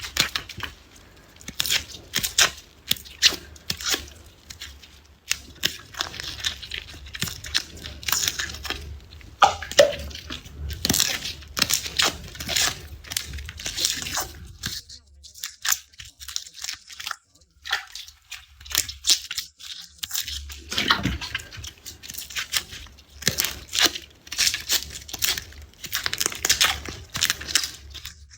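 Garlic peeled by hand close to the microphone: dry, papery skins crackling and tearing in quick, irregular crisp snaps, with a short lull about halfway through, over a faint low hum.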